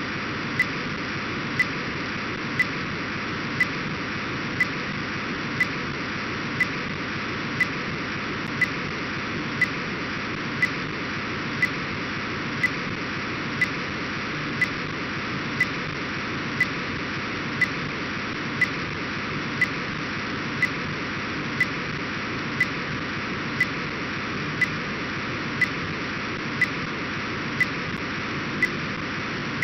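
Demodulated Orbcomm satellite downlink from an SDR receiver, heard as a steady data hiss. A short tick sounds about once a second.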